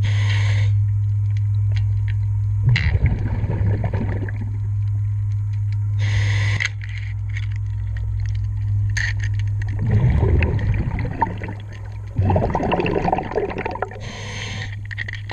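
Diver breathing underwater through a regulator: short hissing inhalations every few seconds and rumbling bursts of exhaled bubbles, over a steady low hum that stops about twelve seconds in.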